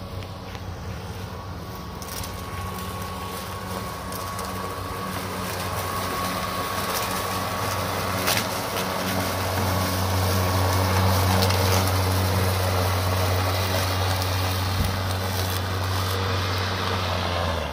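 Greenworks Pro 60-volt brushless 21-inch cordless lawn mower running under load as it cuts and bags tall, thick grass. It makes a steady hum with a cutting hiss that grows louder about halfway through, and it never bogs down. The sound stops abruptly near the end.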